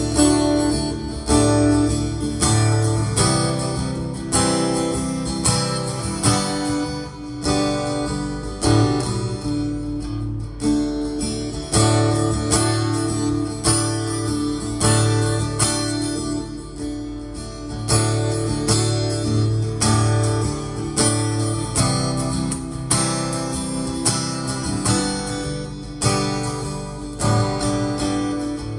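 Fender Hellcat guitar strummed without singing, a steady run of chord strokes with the chords changing every few seconds.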